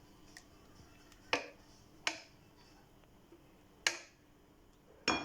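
A kitchen utensil knocking against a glass dish four times, spaced a second or more apart, as thick lemon cream is scraped into the dish; the last knock rings briefly like glass.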